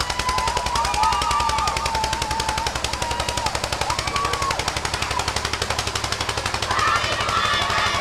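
Old farm tractor engine running, a rapid, even chugging as it pulls a loaded trailer, with people's voices calling out over it.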